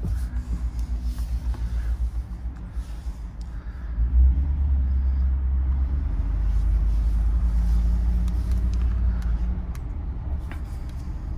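2014 Ford F-150 pickup driving slowly, heard from inside the cab: a steady low engine and road rumble that gets a little louder about four seconds in.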